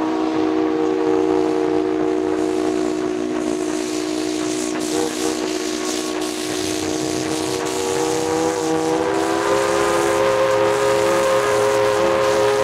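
Steam locomotive whistle blown in one long, sustained chord of several notes, over a hiss of steam. About three-quarters of the way through, its pitch rises slightly and it gets a little louder.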